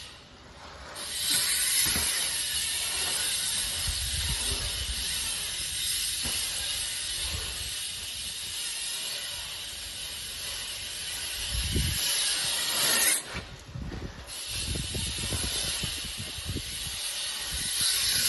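BMX bike tyres rolling over a paved pumptrack, a steady hiss that drops away briefly at the start and again about thirteen seconds in, with irregular low rumbles underneath.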